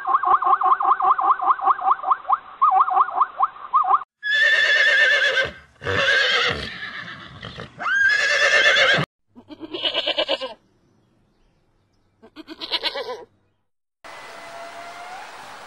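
A zebra's call, a rapid string of yelping pulses for about four seconds, then horses whinnying: several loud neighs that bend in pitch, followed by two shorter quavering whinnies. Near the end, a steady hiss with faint high chirps.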